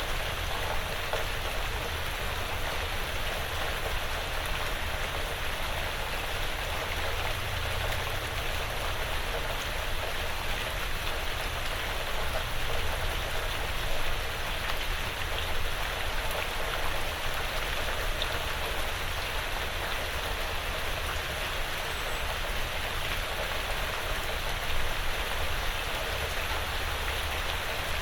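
Steady light rain falling on a porch roof and the surrounding woods, an even hiss with scattered drop ticks and a faint low rumble underneath.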